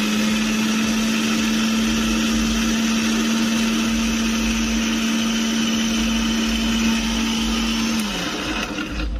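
Boss electric mixer grinder running at a steady pitch, blending a liquid coconut shake in its steel jar. About eight seconds in it is switched off and the motor winds down with a falling pitch.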